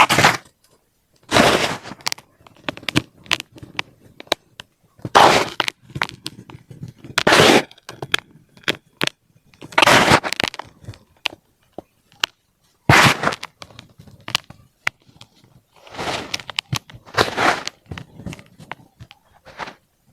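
Compacted baking soda being crushed: a run of short, crisp crunches every two to three seconds, with small crackles and crumbling ticks between them.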